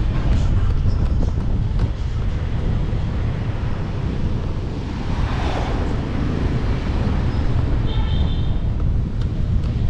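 Wind buffeting the microphone of a riding motorcycle, over steady engine and road noise. A rushing swell midway sounds like another vehicle passing, and a short high-pitched tone sounds about eight seconds in.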